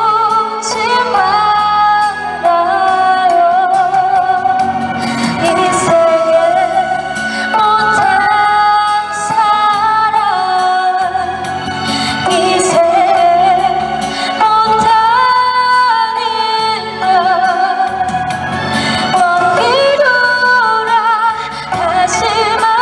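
A woman singing a slow ballad with vibrato on the held notes, live through a stage amplifier, accompanying herself on a gayageum over backing music.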